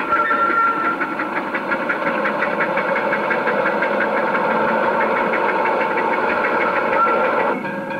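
Miniature live-steam locomotive running, its exhaust chuffing in a rapid, even rhythm of several beats a second. A short steady whistle-like tone sounds near the start, and the sound changes abruptly shortly before the end.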